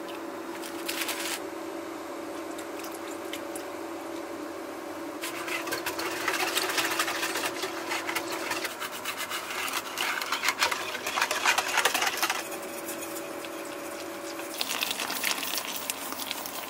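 Wire whisk beating liquid waffle batter in a bowl, a fast clattering rattle of the tines against the bowl. It comes in spells: briefly about a second in, a long run through the middle and again near the end. A steady low hum sits underneath.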